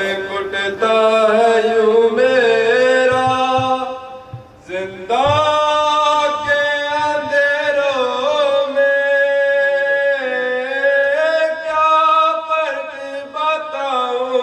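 A solo man chanting unaccompanied into a microphone: long held, gliding notes in two phrases, the first ending about four seconds in and the second starting a second later.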